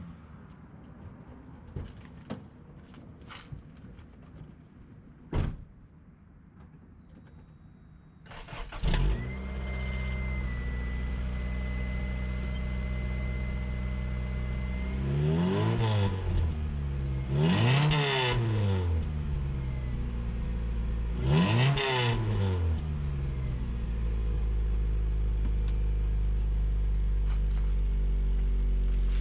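Cold start of a 1997 Honda Civic hatchback on its stock exhaust: a few faint clicks and a knock, then the engine cranks and catches about eight seconds in. It settles into a steady, fairly quiet idle with a thin high tone for a few seconds, is blipped three times in quick revs, and idles on.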